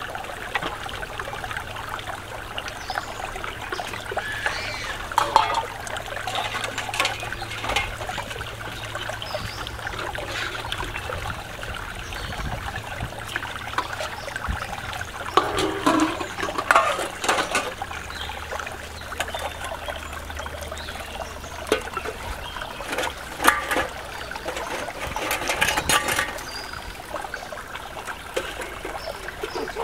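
Stream water trickling and splashing while metal pots, bowls and plates are washed in it by hand, with scattered clinks and knocks of the metal dishes every few seconds.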